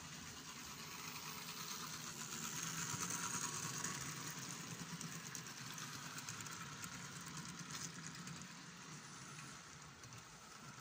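OO gauge model train, a diesel locomotive hauling container wagons, rolling along the track with a whirring run and fine rapid clicking of wheels on rail. It grows louder as the train passes, about three seconds in, then fades as the wagons run away.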